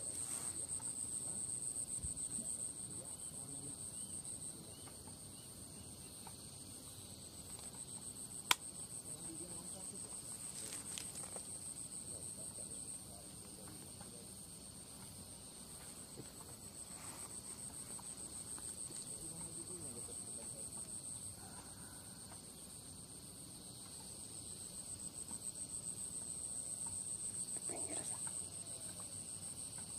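Insects chirring in a continuous high-pitched chorus that swells and eases in waves. A single sharp click sounds about eight seconds in.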